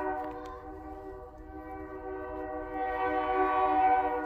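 Locomotive air horn sounding one long held blast, several notes together as one chord, growing louder about three seconds in, over the low rumble of the train.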